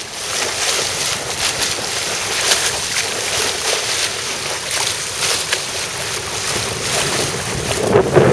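Water rushing and splashing along a sailing yacht's hull as it moves under way, a steady hiss of spray and foam. Wind buffets the microphone more heavily near the end.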